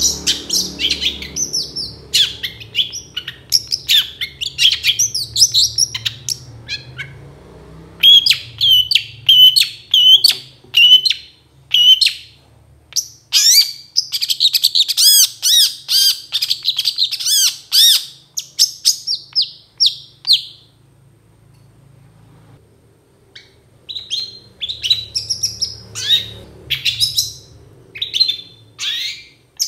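Long-tailed shrike (cendet) singing a rapid, harsh, chattering song of high chirps and trills. It breaks off briefly about two-thirds through, then starts again.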